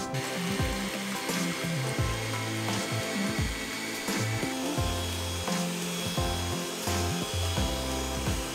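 Vitek electric hand mixer switched on and running, its beaters whisking egg whites for meringue in a stainless steel pot, over background music.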